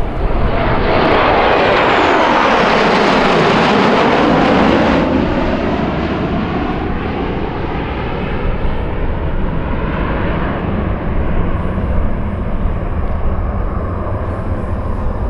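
Jet noise from a formation of six F-16 Fighting Falcons flying past. The roar sweeps down in pitch as they go by, then loses its hiss about five seconds in and settles into a steadier rumble as the jets draw away.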